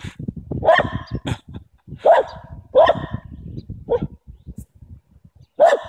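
A dog barking, about five short barks a second or so apart: upset about something.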